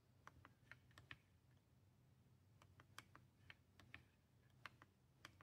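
Faint, irregular clicks of the small keys on an M5Stack Cardputer ADV being pressed one at a time, about fifteen presses in all, over otherwise near silence.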